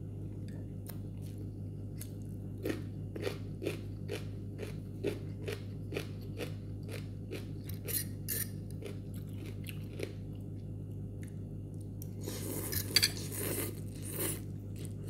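Close-up chewing of crunchy bell pepper, a run of crisp crunches about three a second. Near the end comes a denser, noisier stretch as noodles are slurped up. A low steady hum lies underneath.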